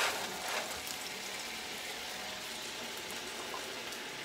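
Scrambled eggs sizzling gently in a nonstick skillet on an electric stove: a steady soft hiss with faint crackles.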